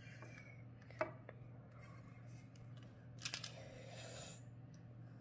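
Quiet handling of cookie dough on a parchment-lined baking tray: a light knock about a second in, a quick cluster of clicks a little after three seconds in, then a short rustle of paper, over a steady low hum.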